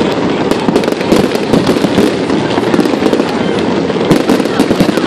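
Fireworks display: a dense, continuous barrage of bangs and crackling, many reports each second with no pause.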